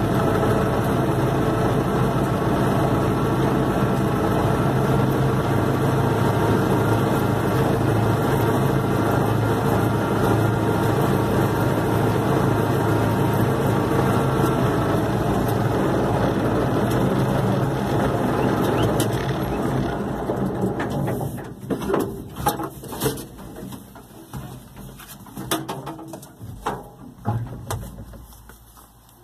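Universal 650 tractor's four-cylinder diesel engine running steadily, heard from inside the cab. About two-thirds through it winds down and stops, and a few scattered knocks and clicks follow.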